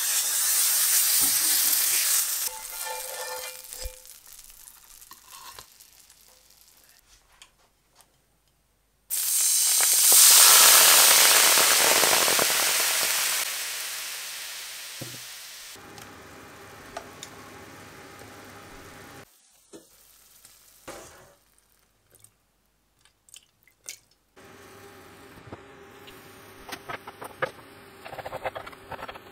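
Sizzling of chicken saltimbocca frying in a nonstick pan, fading as the pieces are lifted out with tongs. A few seconds later, a sudden loud hiss as liquid for the pan sauce hits the hot pan; it dies away over several seconds into a steady simmering bubble. Near the end, a bubbling sizzle with small pops as the sauce cooks.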